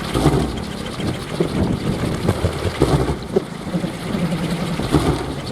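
Kolecer, wooden wind-driven propellers, spinning in strong wind with a steady engine-like drone that swells and wavers with the gusts.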